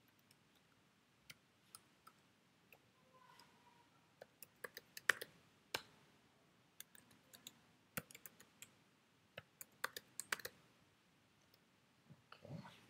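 Faint keyboard typing: irregular key clicks in two quick runs as two terminal commands are typed, with a short low rustle near the end.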